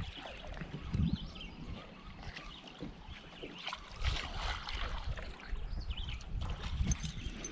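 Small waves lapping and sloshing against the side of a fishing boat, with wind buffeting the microphone and a few soft knocks against the hull.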